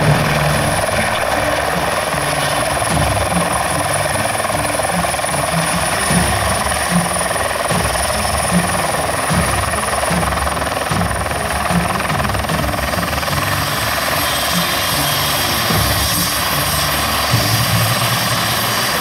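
Eurocopter EC120 Colibri helicopter, with its turboshaft engine and shrouded Fenestron tail rotor, hovering low and coming down to land. Its loud, steady rotor and turbine noise carries a low rhythmic chop and a high whine that dips slightly in pitch about two-thirds of the way through.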